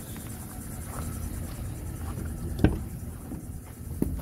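GMC Savana van idling with its drive belt squealing, the squeal caused by water that got on the belt in the wash, which the owner expects to stop once it dries. A sharp click about two-thirds of the way in, and another near the end, as the driver's door is opened.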